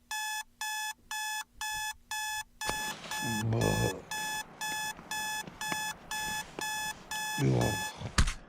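Electronic alarm beeping rapidly and evenly, about two to three beeps a second. Twice a lower sound, about half a second long, comes in under it.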